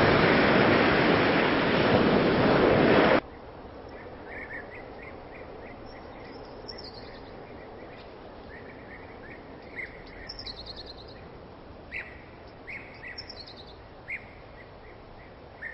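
Loud steady rushing noise that cuts off abruptly about three seconds in. It gives way to a quiet outdoor background with small birds chirping in short, scattered calls.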